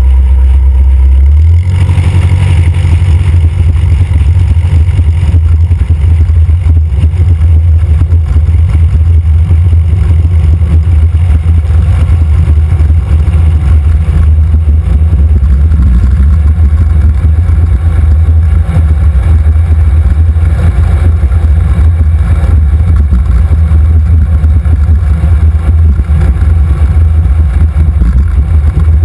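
Van's RV-4 light aircraft's piston engine and propeller running at taxi power: a loud, steady low drone that picks up slightly about two seconds in.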